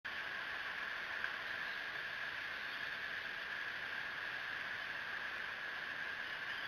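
Steady outdoor background hiss from the nest-cam microphone, with a constant high band and no distinct calls.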